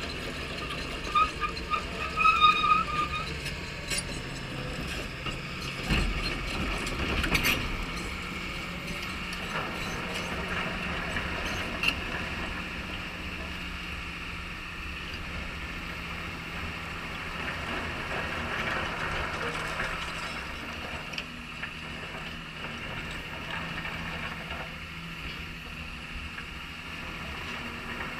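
Caterpillar 320E hydraulic excavator's diesel engine running steadily as the machine works. Stone clatters and knocks loudly in the first few seconds, and again about six to seven seconds in.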